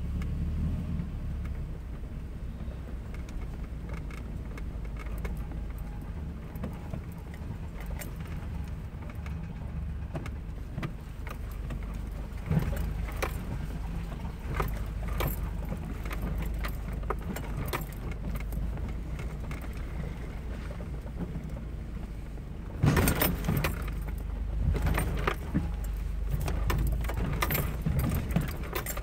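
Off-road vehicle heard from inside the cabin, its engine running low and steady at crawling speed on a rough dirt trail. Loose rattles and knocks come as it bounces over ruts, thickest in a run of jolts near the end.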